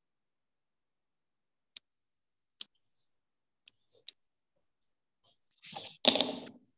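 Four sharp, separate clicks of a marker tapping against a whiteboard, then a rustle and a loud thump close to the microphone near the end.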